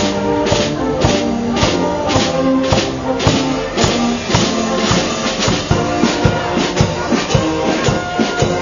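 Tyrolean brass band playing: trombones and tubas sound held notes over cymbals and bass drum, which strike a steady beat of about two to three strokes a second.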